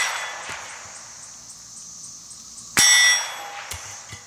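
A .22 LR rifle shot with the ringing clang of a 12-inch steel plate being hit, about three seconds in, as the ring of an earlier hit fades away at the start. A few small knocks follow. Cicadas buzz steadily throughout.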